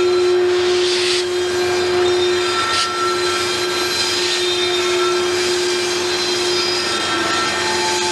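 GE B23-7R 'Super 7' diesel-electric locomotives rolling past with their 12-cylinder engines running: a steady mechanical drone with a constant tone under it, and brief hisses about one second and about three seconds in.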